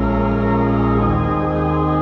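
Church organ playing long held chords with a deep bass, the chord changing about a second in.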